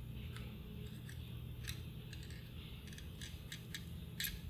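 Soldering iron heating copper desoldering braid on the solder joints of a vintage transistor radio's circuit board: small irregular clicks and crackles as the old electrolytic capacitors are desoldered, the sharpest about four seconds in, over a faint low hum.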